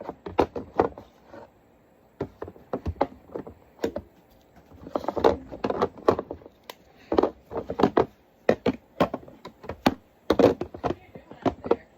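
Skincare jars, tubes and bottles being set down and shifted on mini fridge shelves: a string of light knocks, clicks and taps in uneven clusters, with a brief scrape about five seconds in.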